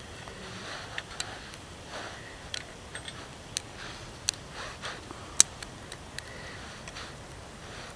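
Small wood fire in a metal box stove crackling, with irregular sharp pops and snaps, the loudest about five and a half seconds in.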